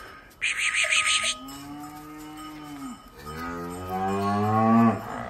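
Cows mooing twice: a shorter moo that rises and falls in pitch, then a longer, louder one that climbs in pitch and cuts off abruptly. Before them, a loud hissing rustle lasts about a second.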